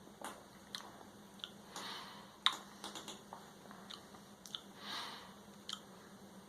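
Faint mouth sounds of someone tasting a mouthful of beer: irregular lip smacks and tongue clicks, with a couple of softer breathy swells.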